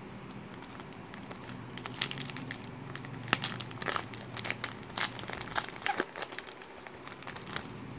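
Foil wrapper of a Panini Threads basketball card pack being torn open and crinkled as the cards are pulled out: a dense run of sharp crackles starting about two seconds in.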